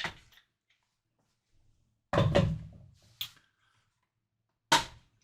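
Clamps being taken off a guitar neck and handled on the workbench: four separate knocks and clunks, the heavier ones about two seconds in and near the end.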